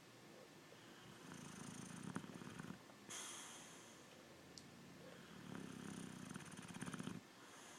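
Boxer dog snoring in its sleep: two long, fluttering snores a few seconds apart, with a breathy exhale between them.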